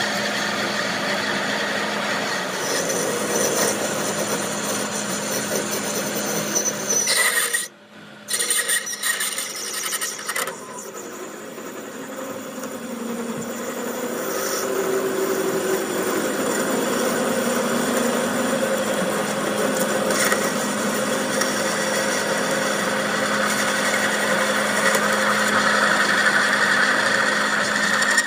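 A workshop power tool running steadily and rasping against metal over a constant motor hum. It drops out briefly about eight seconds in, then carries on.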